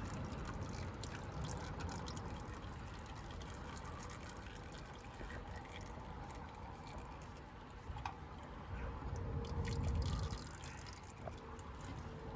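Old engine oil trickling and dripping from the 1992 Chevy K5 Blazer's engine into a drain pan, a steady liquid sound with a few small clicks. The oil is very black, overdue for a change.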